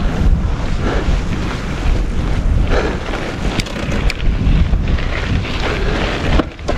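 Mountain bike riding a dirt and stone singletrack: wind rushing over the camera microphone with a low rumble, tyres rolling over dirt and loose stones, and a few sharp clicks and rattles from the bike. The noise briefly drops near the end.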